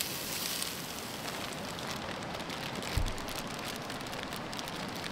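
Onions sizzling in a pan as they caramelize: a steady crackling hiss, with a brief low thump about three seconds in.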